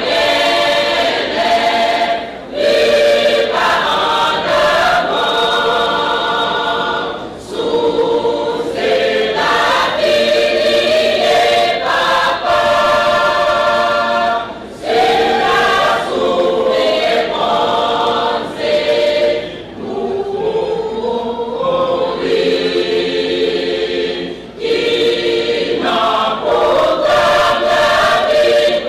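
A choir singing a sacred piece in harmony, in sustained phrases of a few seconds with short pauses between them.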